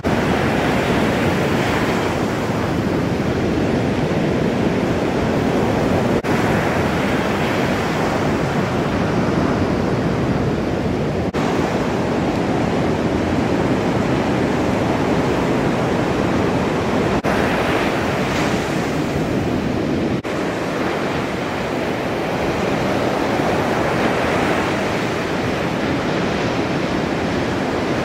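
Ocean surf: a steady wash of breaking waves, with swells of white-water crash every few seconds and wind noise on the microphone, broken by a few brief dips.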